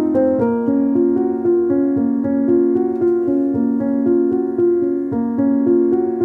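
Piano music: several notes sounding together and held so they overlap, with new notes coming in every half second or so.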